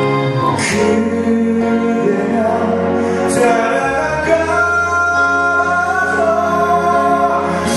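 A man singing a slow ballad live into a microphone, holding long notes, over instrumental accompaniment with a steady bass line and a few cymbal-like hits.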